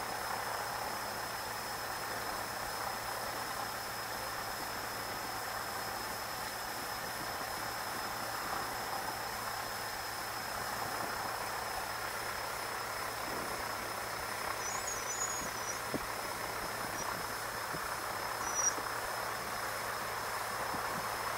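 Cessna 150's four-cylinder Continental O-200 engine idling, heard from inside the cabin as a steady, muffled drone.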